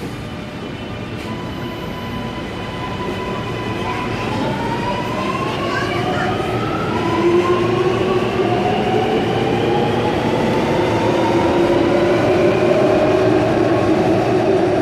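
Alstom Metropolis driverless metro train, its electric traction motors whining in several tones that climb slowly in pitch while the running noise grows steadily louder.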